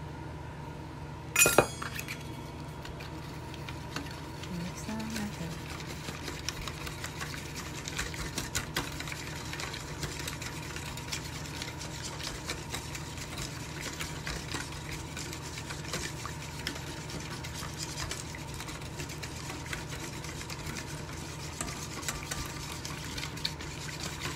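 A metal spoon stirring turmeric and curry into water in a stainless steel pot, with small clinks and scrapes against the pot's sides over a steady low hum. There is one sharp metallic clank about a second and a half in.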